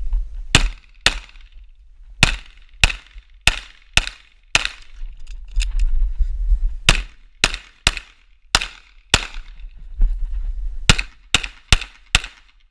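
Semi-automatic pistol firing about sixteen shots, mostly in quick pairs and small groups. A gap of about two seconds comes some five seconds in, while the magazine is changed.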